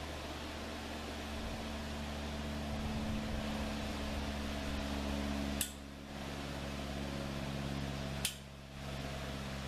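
Caulking gun working around a wall sleeve: two sharp clicks, about halfway through and again near the end, over a steady hum.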